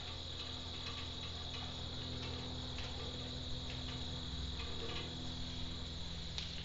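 Faint, irregular ticking and clicking of a gas grill regulator's hand nut being screwed onto a propane tank valve, connecting the tank to the regulator.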